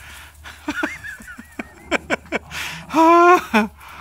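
Two dogs playing: a run of short yips, then one loud, honk-like bark about three seconds in, followed by a shorter one.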